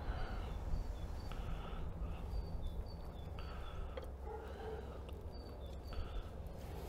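Small birds chirping, short high calls repeated throughout, over a steady low hum.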